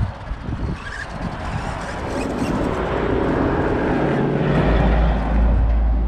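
A road vehicle approaching and passing, growing louder over a few seconds, with a deep rumble setting in past the middle.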